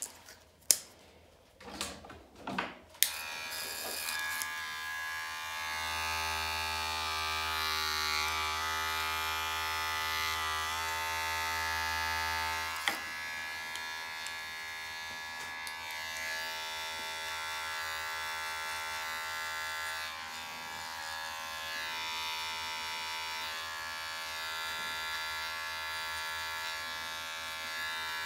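A few sharp clicks, then a Wahl cordless hair clipper switches on and runs with a steady electric buzz as it cuts short hair. About 13 s in there is a click and the buzz settles to a slightly different, steadier tone.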